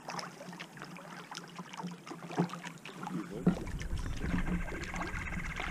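Kayak paddling on calm water: paddle blades dipping, with small splashes and drips. A low rumble joins about three seconds in, and a fast, high trill sounds in the second half.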